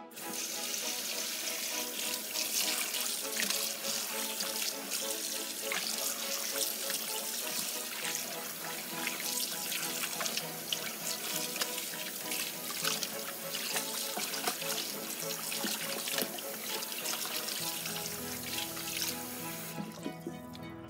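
Tap water running into a stainless steel bowl in a sink, splashing as hands wash raw chicken pieces in it. The running water cuts off near the end.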